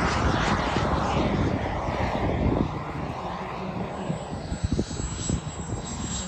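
Turbine engine of a large 1:4-scale RC F-16 model jet: a broad rushing jet noise that fades steadily as the jet comes in low to land. A thin, high, steady whine comes through in the last couple of seconds.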